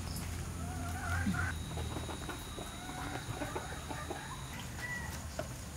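Chickens clucking in short, wavering calls.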